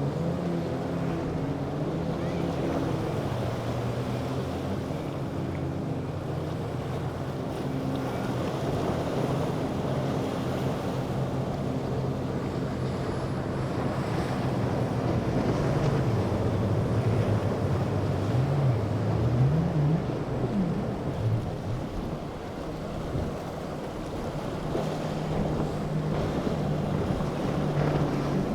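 Motorboat engines running over a steady wash of waves and wind noise on the microphone, their pitch wavering up and down a little past the middle.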